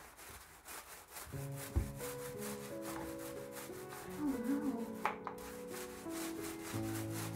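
Paintbrush strokes rubbing back and forth over a wall, a quick, regular scratchy rhythm, as dark green paint is brushed on. Background music with held notes comes in about a second and a half in.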